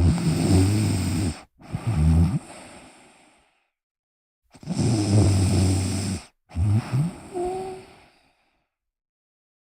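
A person snoring loudly in sleep: two snore cycles about four and a half seconds apart, each a long snore followed after a short break by a shorter one.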